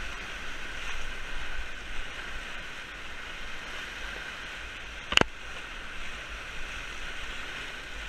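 Whitewater rapids rushing around an inflatable raft as it runs through breaking waves, with one sharp knock about five seconds in.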